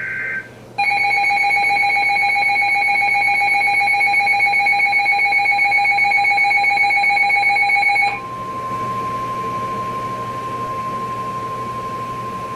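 Emergency Alert System sequence. The end of a SAME digital header burst, a short warbling data screech, stops about half a second in. A loud, steady electronic attention tone of several fixed pitches then sounds for about seven seconds. It gives way to the single steady 1050 Hz NOAA Weather Radio warning alarm tone, which signals that a warning message follows.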